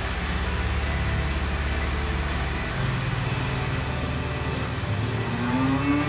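Steady low hum of milking-parlour machinery, with a cow starting a low moo near the end, its pitch rising then falling.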